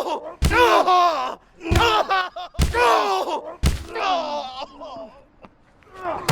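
Fist-fight: sharp thuds of blows landing, about four or five in a row, each followed by a man's strained grunt.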